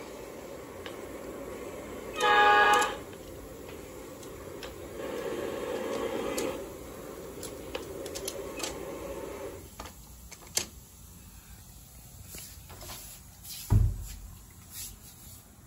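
O gauge model diesel locomotive's horn sounding one short blast about two seconds in, followed by the train's running rumble on the track with scattered clicks. A low thump comes near the end.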